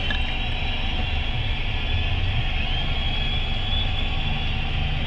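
Steady low rumble of a car's engine and street traffic heard from inside the car's cabin, with a faint high steady whine.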